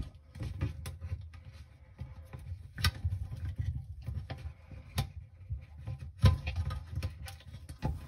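Hands working a thin wire to pull a replacement rubber pump-sump seal around a screw mount of a dishwasher's plastic pump sump: irregular rubbing, scraping and low knocking, with a few sharp clicks about three, five and six seconds in.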